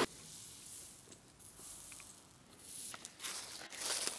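Soft squishing and scraping of a small brush stirring flux paste in its tub and dabbing it onto a copper pipe fitting. About three seconds in, scattered clicks and rustling begin and grow louder, like footsteps through dry leaves.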